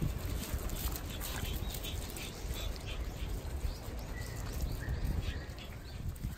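Outdoor ambience: a steady low rumble like wind on the microphone, with a scatter of faint, short, high chirps.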